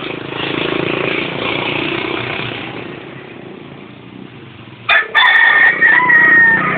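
A vehicle passes in the background, then about five seconds in a rooster crows once: a loud, strident call of about two seconds, the loudest sound of all.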